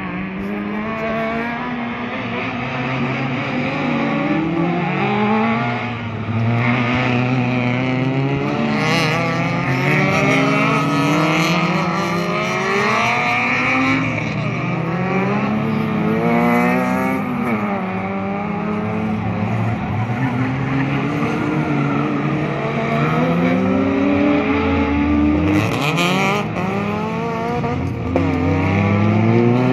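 Several 1.6-litre-class race cars' engines revving, their pitch climbing and dropping again and again as they brake for the turn and accelerate away through the gears, with engines overlapping. Short bursts of tyre squeal come twice, near the middle and again near the end.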